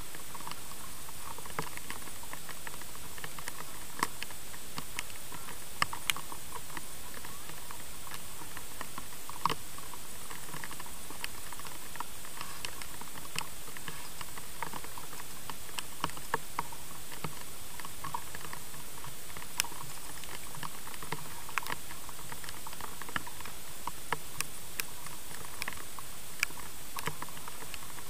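Faint, irregular clicks and taps over a steady hiss, with a few sharper clicks scattered through: distant tennis balls being struck and bouncing on a clay court.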